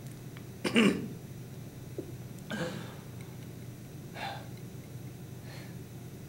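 A few short, breathy human vocal sounds, such as a throat clear or a sharp exhale. The loudest comes about a second in and fainter ones follow, over a steady low room hum.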